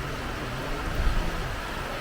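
Sea water washing at low tide as a steady hiss, with an uneven low rumble underneath that peaks briefly about a second in.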